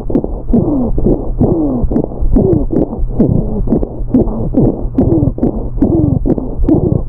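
Recorded chest auscultation of rhonchi: a rough, scraping breath sound, each stroke a falling tone, repeating about twice a second over a steady low rumble. Rhonchi mark obstruction of the central airways, often from thick secretion stuck to the bronchial walls.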